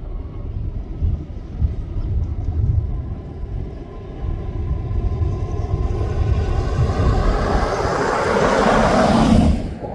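Rumble of a Metro-North diesel push-pull train running fast along the far riverbank, mixed with wind on the microphone. It builds over the second half and drops off sharply near the end.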